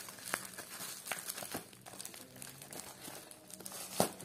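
Plastic packaging crinkling and tearing as it is pulled off a cardboard bearing box, in many short irregular crackles, with one louder sharp crack near the end.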